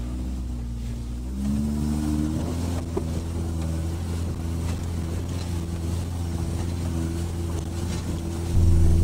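Subaru Forester's flat-four engine pulling under load on a steep, rough off-road climb. Its note rises about a second and a half in, then holds steady and gets louder near the end.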